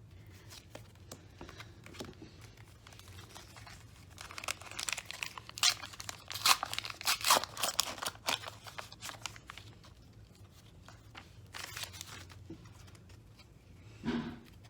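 A Pokémon card pack's wrapper being torn open and crinkled, in a long run of sharp crackles through the middle and a shorter burst a few seconds later.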